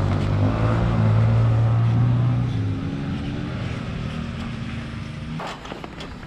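Enduro motorcycle engines idling steadily on choke after a cold start. The engine note gets quieter over the second half, and a few sharp clicks come near the end.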